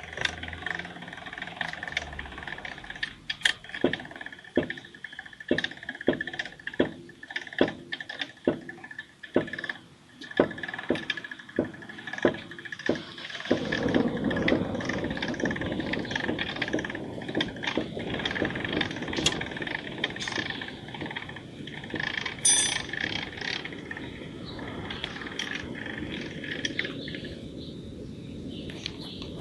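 VAZ-21011 suspension squeaking and creaking, sharp strokes repeating about twice a second. About halfway through, a steady rumbling noise takes over.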